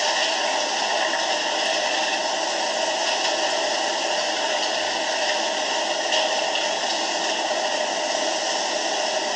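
Steady rushing noise of tsunami floodwater surging inland, an even roar that holds at one level throughout.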